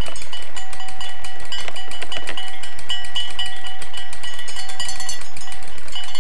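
Holmes pedestal fan running fast and wobbling, with a steady ringing tone over rapid metallic clinking and rattling.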